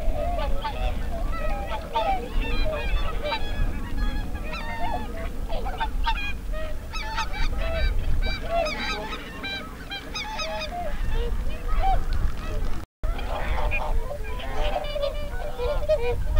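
A flock of whooper swans calling, many honking calls overlapping one another without a break. The sound drops out for an instant about 13 seconds in.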